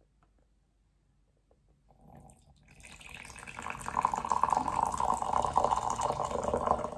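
Liquid pouring from a glass French press into a ceramic mug. The stream splashes into the mug, beginning faintly about two seconds in and growing louder.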